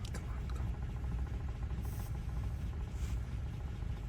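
Steady low hum of a vehicle engine idling, with a few faint light clicks over it.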